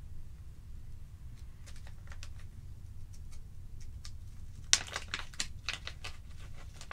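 Small plastic zip-lock bag handled with faint crinkles and clicks, then pulled open about five seconds in with a burst of crackling, its loudest a sharp snap.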